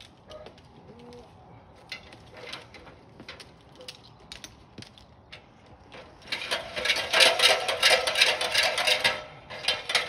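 Aluminium extension ladder being handled and taken down from the tree trunk: scattered clicks and knocks, then from about six seconds in several seconds of loud, rapid metallic rattling and clicking, with another short burst near the end.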